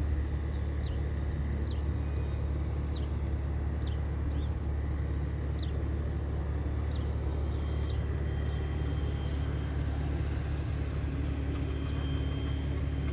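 A vehicle engine running steadily with a low, even rumble, with short high chirps repeating about once a second over it.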